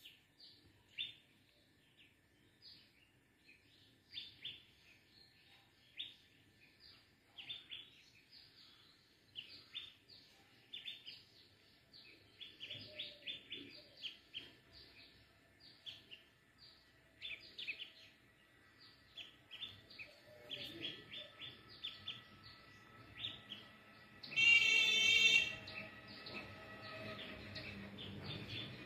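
Small birds chirping, a steady stream of short, high chirps that grow busier. About three-quarters of the way through, a louder one-second call with a stack of tones sounds out.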